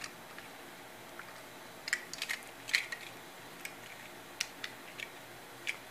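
Faint scattered clicks and taps as two die-cast Lightning McQueen toy cars are handled and turned over in the hand, most of them in two clusters, about two seconds in and again near the four-and-a-half-second mark, over a low hiss.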